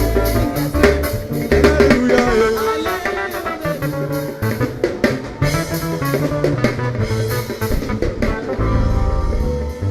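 A church praise band playing an instrumental passage: drum kit with snare and bass drum beating steadily over bass notes and sustained pitched instruments. The music cuts off right at the end.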